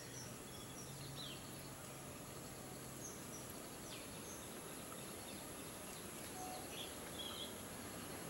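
Forest ambience: a steady hiss with scattered short bird chirps and calls, over a thin, steady high whine. A faint low hum runs through the first few seconds and then fades out.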